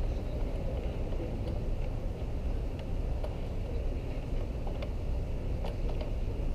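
A few faint, light clicks as a threaded terminal post and its washers are unscrewed by hand from the top of a lithium battery, over a steady low background rumble.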